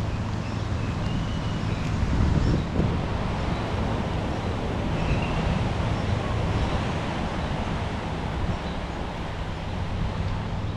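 Street traffic: vehicle engines running with a steady low hum, and wind buffeting the microphone.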